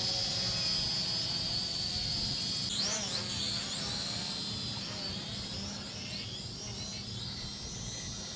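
Small quadcopter drone's propellers whining in flight. The high pitch wavers and swoops up and down as the motors change speed while it is steered, most sharply about three seconds in.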